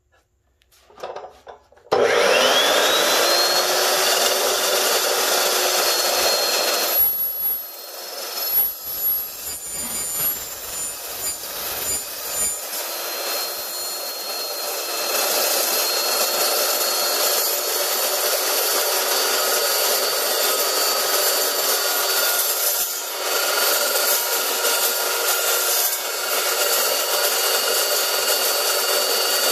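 Evolution S380CPS 15-inch dry-cut metal chop saw starting up about two seconds in, its whine rising quickly to a steady pitch. A few seconds later the carbide-tipped blade bites into metal tubing, unevenly at first, then settles into a steady cut, a whine with a grinding, scraping noise.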